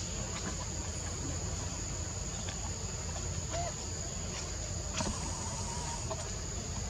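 A steady, high-pitched insect drone over a low rumble, with a few faint short chirps and a soft knock about five seconds in.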